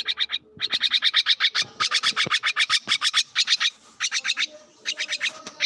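Birds chirping in fast runs of short, high chirps, about ten a second, with a brief lull partway through.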